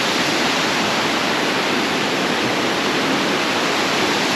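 Waterfall rushing: a loud, steady roar of falling water close by.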